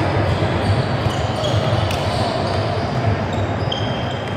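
A basketball game on a hardwood gym court: a ball bouncing as it is dribbled, short sneaker squeaks, and indistinct voices, all echoing in the large hall.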